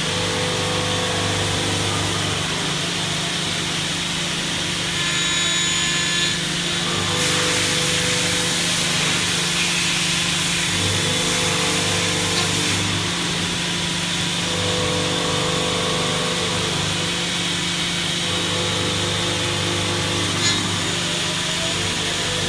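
High-speed CNC milling machine running and cutting, a steady machine hum with a louder hiss for several seconds in the middle.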